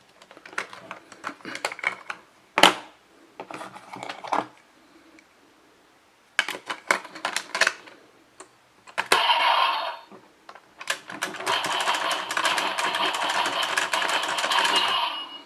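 Plastic clicks and ratcheting from a DX Geartlinger toy morpher as a Sentai gear is fitted and turned. From about nine seconds in, the toy's small speaker plays loud electronic sound effects, most dense over the last few seconds.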